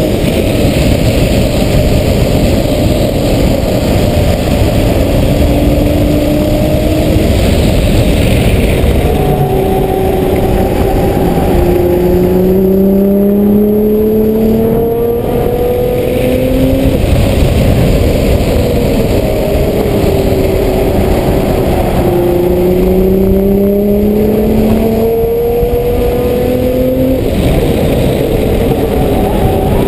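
Car heard from inside the cabin while lapping a race track: the engine note climbs steadily under acceleration for several seconds, then falls away, several times over, above a loud, constant rumble of road and wind noise.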